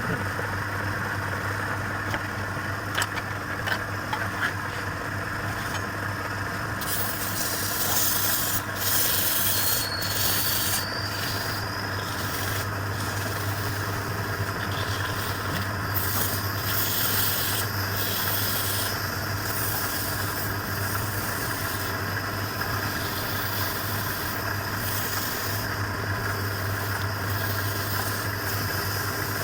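Wood lathe motor running with a steady hum while a tool rubs and scrapes against the spinning wood. From about seven seconds in it comes in repeated hissing bursts.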